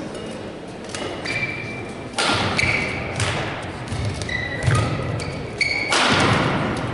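Badminton rally: rackets striking the shuttlecock with sharp hits every second or so, mixed with short high squeaks of players' shoes on the court floor. A louder hissing rush comes near the end.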